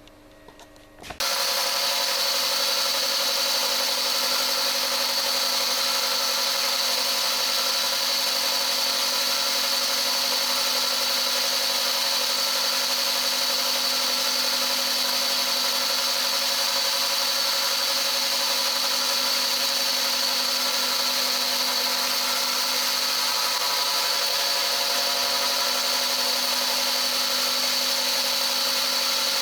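A CNC milling machine hobbing a helical gear: the spindle and gear hob start cutting metal about a second in, then run as a steady, even machining noise with a high whine.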